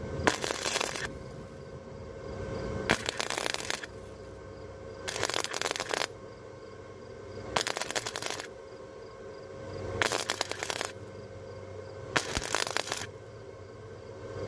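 Harbor Freight 125 flux-core welder's arc crackling in short stitch welds on the truck bed: six bursts of about a second each, roughly two seconds apart, with a steady hum between them.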